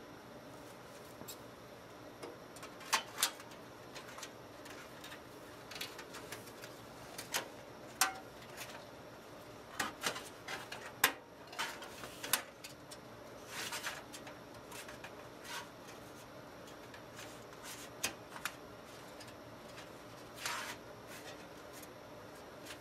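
Scattered light clicks, taps and knocks of metal and circuit-board hardware being handled as a motherboard is fitted into a PC case, over a faint steady hum.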